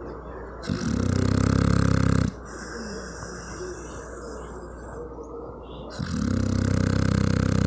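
A dog snoring loudly: two long, buzzing, pig-like snores, each about a second and a half, about four seconds apart.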